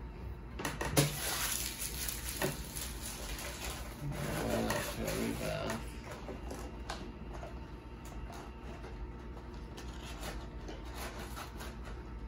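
Rustling and crinkling of a trading-card box's paper and pack wrapping being handled, with a sharp click about a second in and a brief murmured voice around the middle; then softer, with light clicks of cards being flipped.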